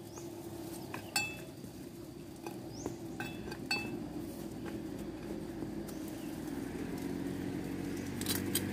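A metal digging tool striking rock several times, sharp clinks with a short ring, while prying out tree roots wedged in stone. A motor vehicle's low hum grows louder toward the end.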